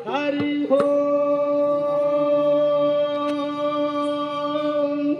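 A man's singing voice holds one long, steady note for about four and a half seconds after a few short sung syllables. It is the drawn-out closing note of a Telugu devotional aarti song.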